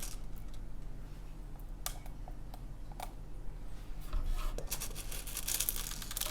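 Plastic beads being tipped from their packet into clear glue: scattered light clicks and crinkles, thickest near the end.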